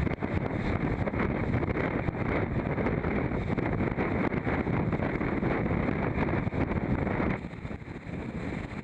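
Wind buffeting the microphone over the rush of water along the hull of an IMOCA 60 racing yacht under sail, a loud, steady noise that drops suddenly near the end.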